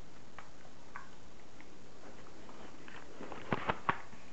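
Light plastic clicks and knocks from a homemade BB rifle being handled, its rod pushed into the tic-tac-box magazine, ending in three sharp clicks in quick succession near the end.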